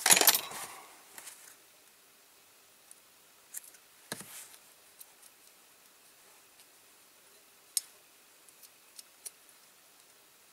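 A short rasp of masking tape being pulled and cut as it is worked onto a small diecast model. This is followed by a few faint scattered clicks and taps of the tape and model being handled.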